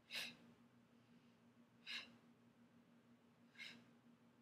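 A woman's short, sharp breaths out, three of them about every one and three-quarter seconds, one with each hip lift of a banded glute bridge.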